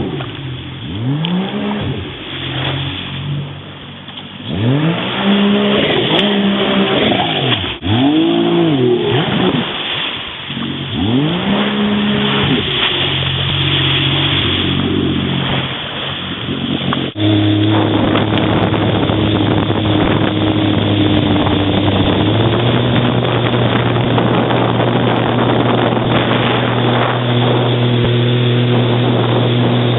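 Jet ski engine revving up and back down again and again, then, from about halfway, running steadily at a constant high speed, its pitch stepping up slightly a few seconds later.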